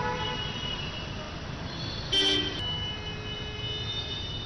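Vehicle horns honking over traffic noise: a short, loud honk about two seconds in, then a longer held horn.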